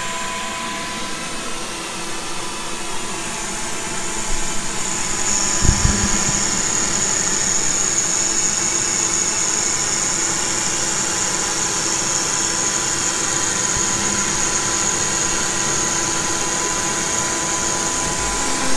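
CNC router spindle running at high speed with a 1/8-inch O-flute bit profile-cutting through PVC sheet: a steady whine with a hiss of cutting. The sound grows louder and a high whine comes in about five seconds in, with one brief thump just after.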